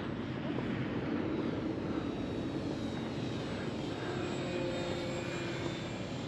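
Electric motor and propeller of a small foamboard RC bush plane in flight: a steady whine and drone whose pitch slowly shifts as the plane passes.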